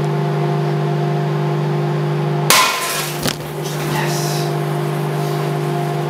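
Microwave oven running with a steady hum. About two and a half seconds in, a light bulb inside it bursts with a loud sharp crack and crash, followed by a smaller snap and a brief hiss.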